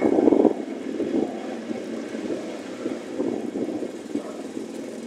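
Wind buffeting the microphone over the noise of a moving vehicle, rough and uneven. It is loudest at the start and drops to a lower level about half a second in.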